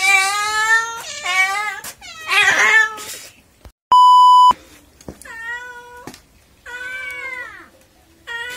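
A cat meowing over and over, about six drawn-out meows. The meows are broken about four seconds in by a steady test-tone beep of about half a second, the loudest sound.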